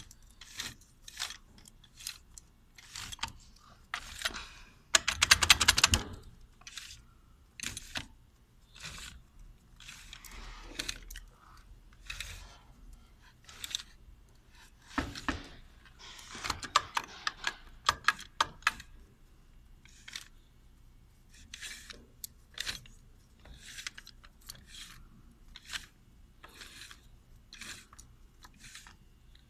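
Metal transmission parts and hand tools clicking, knocking and scraping as an automatic gearbox is reassembled, with a loud run of rapid clicks about five seconds in.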